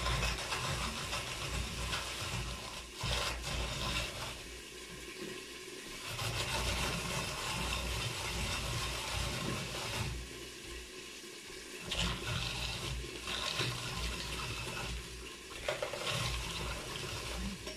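Hand-cranked Saladmaster food processor shredding white cabbage: a continuous rasping, grinding noise from the turning cutting cone, with a low rumble underneath and a few short lulls.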